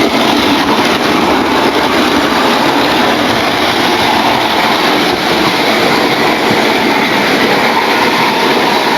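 A model Flying Scotsman locomotive running along the model railway track with its train, a loud, steady rolling noise of motor and wheels on rail.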